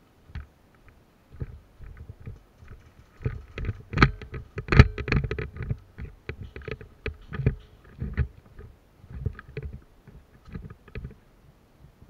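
Irregular knocks, scuffs and rustling close to the microphone as a player moves over the dirt and handles gear, loudest about four to five seconds in.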